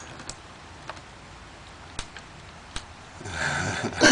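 A kitten pouncing on a beetle on a tile floor: about five faint, sharp taps scattered over three seconds over quiet room tone.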